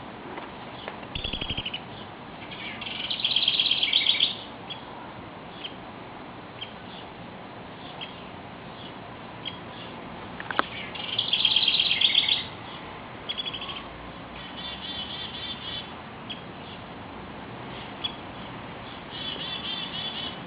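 Bird calls: bursts of rapid, high chirping notes, repeated several times, the loudest about three and eleven seconds in.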